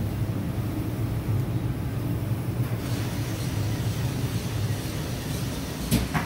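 Steady low rumble of a moving vehicle heard from inside the cabin, with a couple of sharp clicks near the end.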